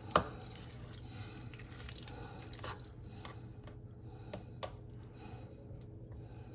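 Kitchen knife cutting into a cooked rotisserie chicken on a wooden cutting board: soft squishing and crunching of skin and meat, with one sharp knock just after the start and a few lighter clicks later. A faint steady low hum runs underneath.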